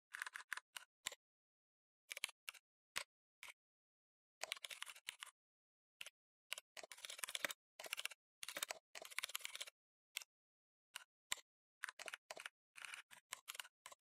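Computer keyboard typing: runs of rapid keystrokes broken by short pauses, with a few single taps between them. Each pause drops to dead silence.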